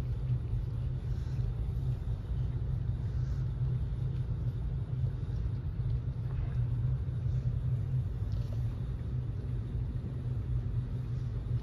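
A steady low rumble with no clear rhythm or pitch change, and a few faint, soft higher sounds over it.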